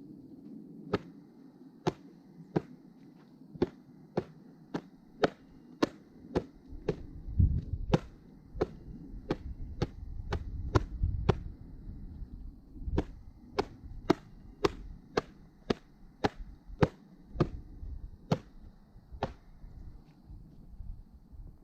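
Split pine firewood knocking: a string of short, sharp wooden clacks, about one or two a second and unevenly spaced, with a low rumble swelling briefly in the middle.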